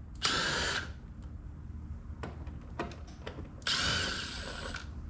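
Cordless screw gun whirring in two bursts, a short one just after the start and a longer one of about a second near the end, backing Phillips screws out of the swamp cooler's side panel.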